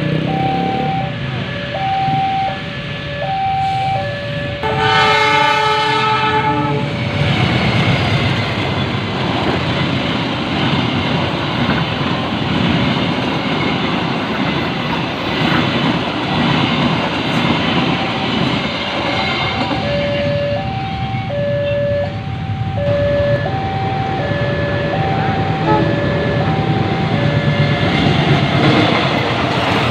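Train passing with its wheels clattering over the rails, while an alternating two-note level-crossing warning signal sounds. About five seconds in a train horn blows one chord for about two seconds. The warning tones drop out in the middle and return about twenty seconds in.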